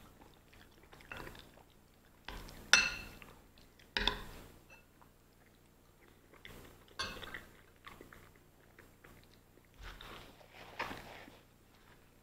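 Metal spoon scraping and clinking against a bowl several times, with close-up chewing of a mouthful of macaroni and cheese between the clinks.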